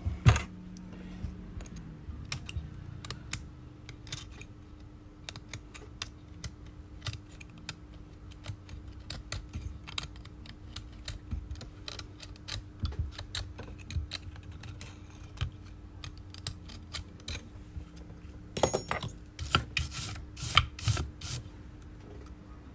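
Metal blade scraping dried back-glass adhesive off an iPhone 11's frame: a run of small irregular clicks and scratches, denser and louder for a couple of seconds near the end.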